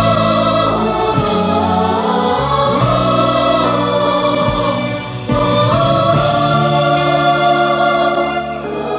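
Mixed choir of men's and women's voices singing long held chords with an orchestra.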